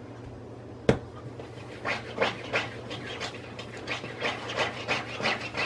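Dog panting: quick breathy strokes, about three a second, starting about two seconds in. One sharp knock comes about a second in.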